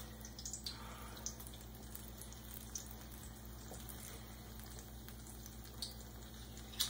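Apple fritter batter frying in a pot of hot oil: a faint, steady sizzle with scattered small pops, and a sharp click near the end.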